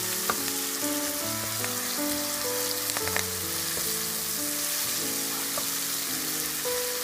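Chopped onion and tomato frying in hot oil in a pan, with a steady sizzle and a couple of sharp clicks, about a third of a second and three seconds in. Soft background music plays underneath.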